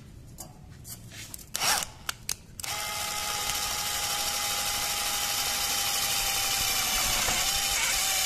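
Tekiro 20V brushless cordless impact driver on its lowest speed setting, driving a self-drilling screw into thin hollow metal section. It runs steadily from about three seconds in, after a few clicks and a knock.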